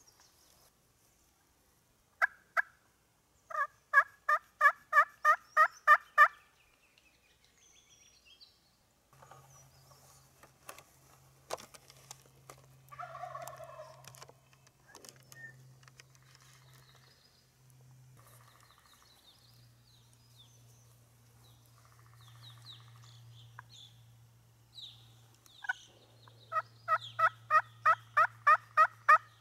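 Two loud runs of turkey yelps near the start and near the end, each a single lead note followed by about nine evenly spaced yelps over two to three seconds. Between the runs there are softer bird calls and a low steady hum.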